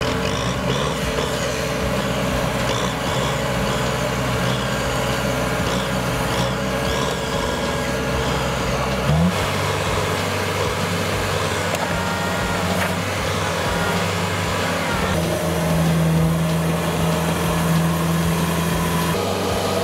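Diesel engine of a Kubota DC70 crawler combine harvester running steadily at working speed, its note shifting abruptly about nine seconds in and again near fifteen seconds.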